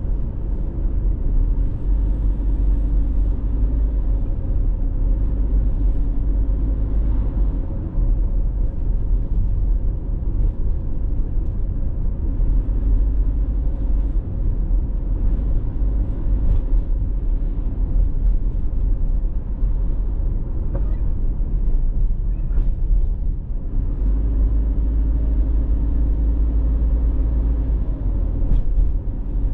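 A car being driven, its engine and tyre rumble heard from inside the car as a steady low drone. A faint low hum fades out about a quarter of the way in and returns near the end.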